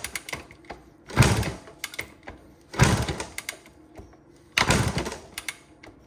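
A small single-cylinder motorcycle being kick-started over and over: three kicks, each a sudden rush of cranking noise that fades within about half a second, with the engine never catching and running.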